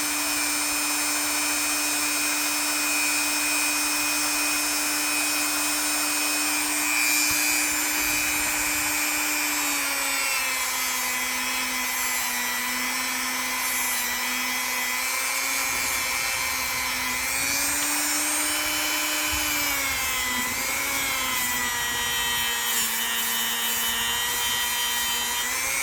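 Small power tool motor running steadily while polishing a pocket knife blade, with a high hiss of abrasion, its pitch dipping and rising a little several times.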